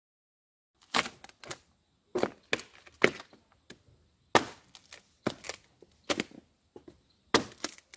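A hand tool knocking and prying rotted plywood squares out of a boat's fiberglass deck shell: about a dozen irregular sharp knocks and cracks of breaking wood, starting about a second in.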